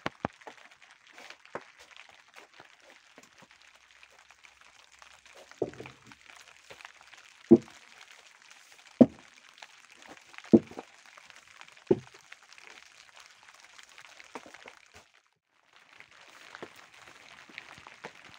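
Five heavy blows of a hand tool striking a solid object, evenly spaced about a second and a half apart, over a steady faint background hiss with small ticks and cracks.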